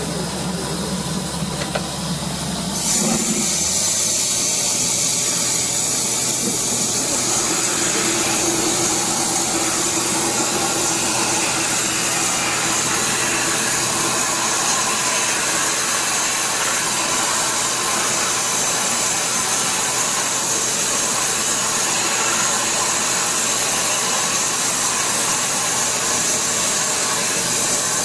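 Water-well drilling rig running as its rod bores into the ground; about three seconds in, a loud steady hiss starts suddenly over the engine and keeps on.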